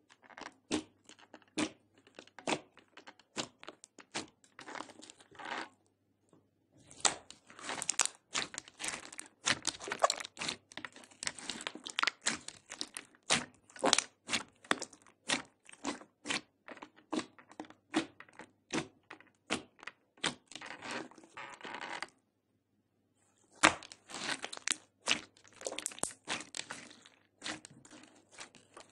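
Glossy clear slime being pressed, folded and squished by hand: a rapid, irregular run of many short sticky clicks and pops. The sound breaks off into brief silence twice, about six seconds in and again about twenty-two seconds in.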